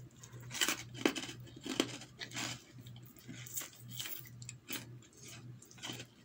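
A person biting into and chewing a fresh green leaf, giving short irregular crunches and mouth clicks, several a second.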